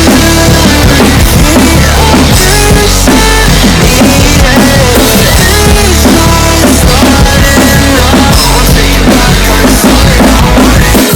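Loud rock music in an instrumental section without singing: a full band track with a drum kit played over it, steady bass drum and cymbals under stepping melodic lines.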